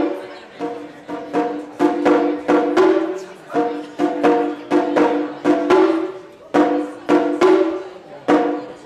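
Taiko drums struck in a steady driving rhythm, about three strokes a second, each stroke ringing briefly.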